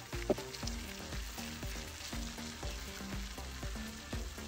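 Stuffed baby eggplants frying in shallow oil in a pan, a soft steady sizzle, while a wooden spatula nudges and turns them so both sides fry.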